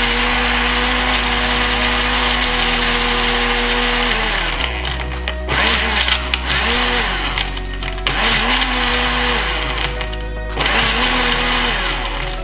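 Countertop jug blender crushing ice in an iced white-coffee mix. The motor runs steadily for about four seconds, then its speed sags and picks up again several times while the speed knob is worked. The blender is not powerful enough: the ice is not yet blended smooth.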